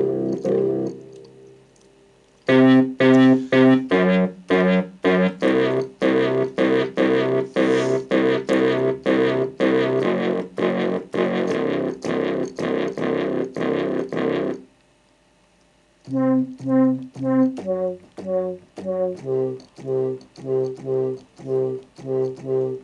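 Korg Kronos synth bass preset playing a repeating riff of short, punchy bass notes, several a second. It stops twice for about a second and a half, then starts again.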